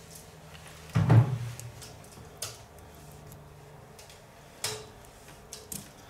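Handling sounds on a repair bench: one loud knock about a second in that rings briefly, then a few short sharp clicks.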